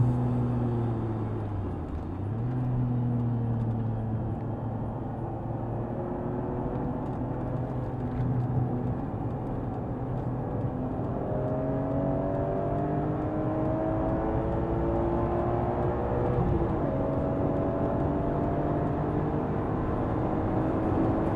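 BMW M3 E46's S54 straight-six engine pulling hard at track speed, its pitch climbing slowly and steadily, with a sharp drop in pitch once about three-quarters through before it climbs again.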